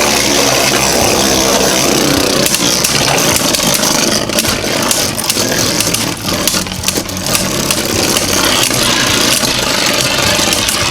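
Two Beyblade Burst spinning tops with 3D-printed metal upgrades whirring and grinding around the stadium, clashing again and again, with a dense run of collisions about four to seven seconds in.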